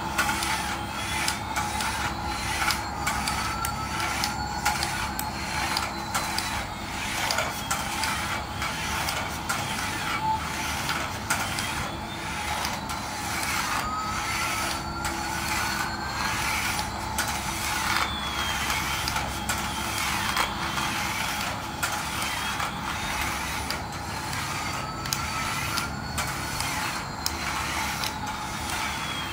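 Battery-operated toy Airbus A380 driving on its electric motor while its built-in sound effect loops: a whine that rises and falls about every ten seconds over a steady hum and rapid clicking.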